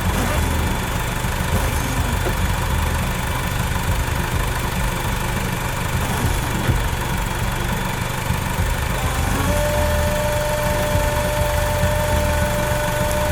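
2005 Chrysler Sebring idling steadily; about nine and a half seconds in, a steady whine starts and holds, the windshield-washer pump running to spray fluid through the repaired hose.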